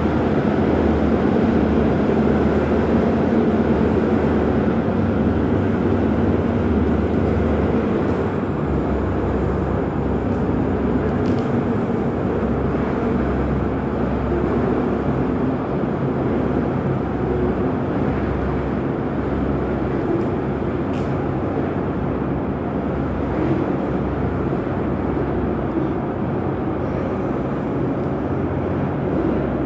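Train running below: a steady rumble with a low, droning engine hum.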